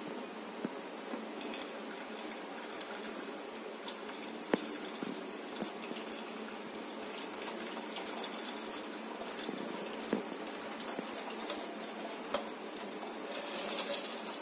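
Warm jaggery syrup poured from a steel pan through a plastic tea strainer into a steel pot: a steady trickle and splash of liquid, with a few light clicks, growing a little louder near the end.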